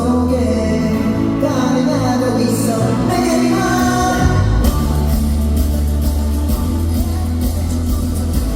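Pop song sung live by a male singer over loud backing music with heavy bass.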